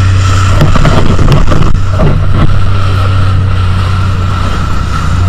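Motorboat engine running steadily with a low, constant hum, with wind rushing over the microphone.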